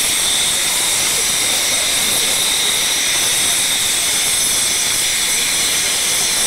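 Steady, loud hiss of steam escaping from a standing Polish TKh-class tank engine, running on without a break.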